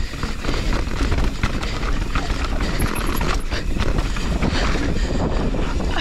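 Mountain bike riding a dirt trail: wind rushing over the on-bike camera's microphone, with a deep rumble from the tyres on the dirt and frequent clicks and knocks of the bike rattling over the bumps.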